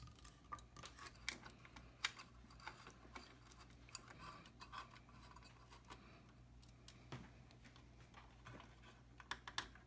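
Faint, scattered clicks and small scrapes of a flathead screwdriver and the transformer's mounting screws and nuts being worked on a Dynaco ST70 amplifier's steel chassis, over a low steady hum.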